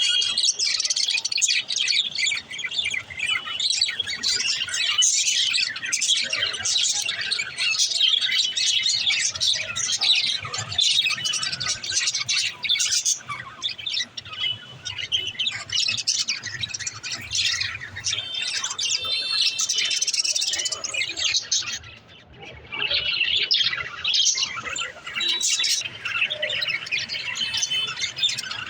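Budgerigars chirping and chattering in a dense, continuous stream of high, quick calls, with a brief lull about three-quarters of the way through.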